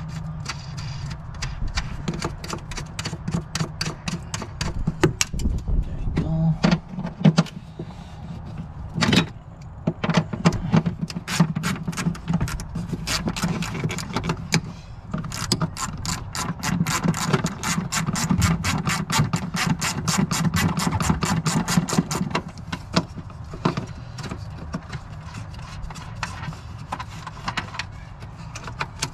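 Ratchet wrench with a deep 10 mm socket clicking rapidly as the bolts of a sensor bracket are worked loose, in spurts with short pauses, densest through the middle.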